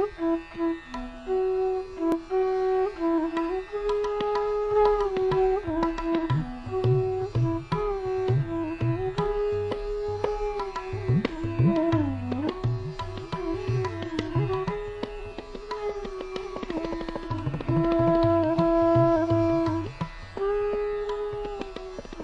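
Background music in an Indian classical style: a melody that slides between held notes, with low hand-drum strokes joining about six seconds in.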